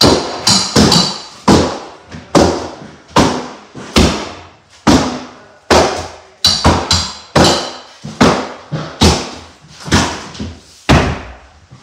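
Repeated hammer blows smashing into an old board-covered wall to break it open, about twenty sharp strikes at uneven intervals, each ringing briefly.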